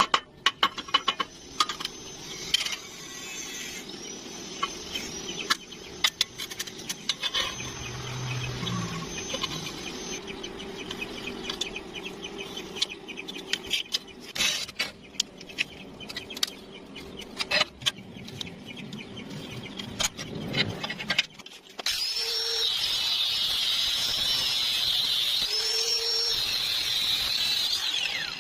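Metalworking on square steel tubing: sharp clicks and taps with a high power-tool whine over the first part, then a steady, louder power-tool run starting about 22 seconds in and stopping near the end.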